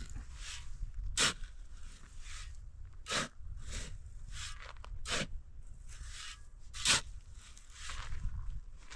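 Four sharp crunching or scraping strokes about two seconds apart, with fainter ones between, over a low steady rumble.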